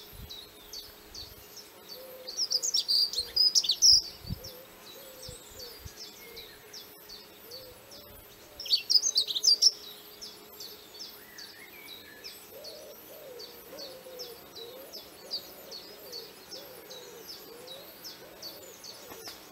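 Birds calling: a high chirp repeated over and over, two brief louder bursts of song, and low wavering calls, more of them in the second half.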